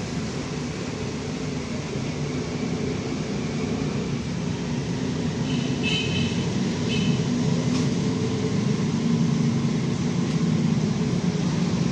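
Steady low mechanical hum that grows a little louder from about four seconds in, with a short high chirp about six seconds in.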